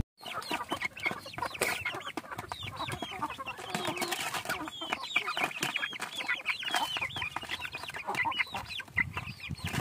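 Young Basilan chickens peeping and clucking as they eat, with many quick falling chirps, mixed with a steady patter of clicks from beaks pecking dry feed out of a plastic tray.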